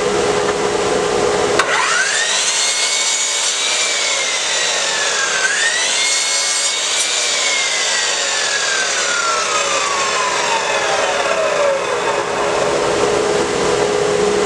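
A Chicago Electric sliding compound miter saw starts up with a fast rising whine. Its pitch sags for a couple of seconds as it cuts a scrap of wood, recovers, then falls away slowly over about five seconds as the motor is switched off and spins down. A dust collector hums steadily underneath.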